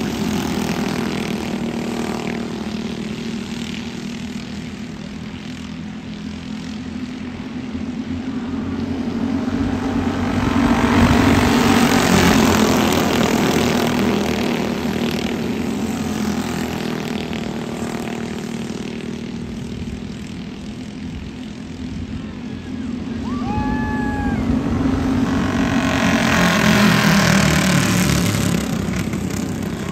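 A pack of cage karts' small single-cylinder engines buzzing around a dirt oval. The sound swells twice as the karts pass close, about a third of the way in and again near the end, and fades as they move away down the track.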